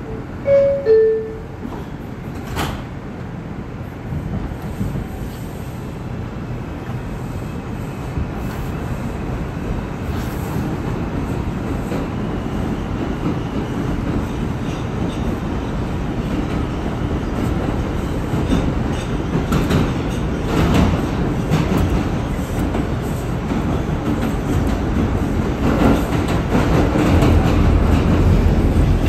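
R142 subway car's door chime, two short descending tones about half a second in, then the train pulling out of the station: a steady rumble of wheels on rails and running gear inside the car, growing louder as it picks up speed.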